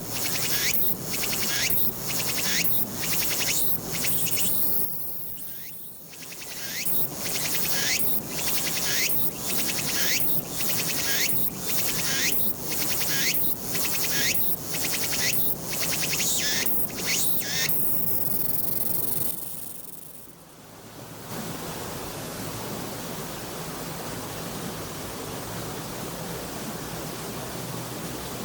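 Tsukutsukuboushi cicada (Meimuna opalifera) singing its rhythmic song: a long run of repeated high, rasping phrases, about one and a quarter a second, with a brief break about five seconds in. About eighteen seconds in it ends in a steady buzz. After a short drop, an even high hiss carries on to the end.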